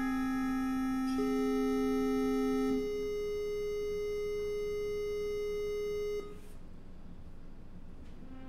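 Background music of long held notes: a low note, then a higher one that comes in about a second in. The music stops about six seconds in, leaving only faint noise.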